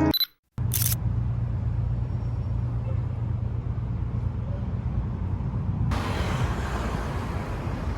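Steady low rumble of road traffic or a moving vehicle, with a broader hiss joining about six seconds in.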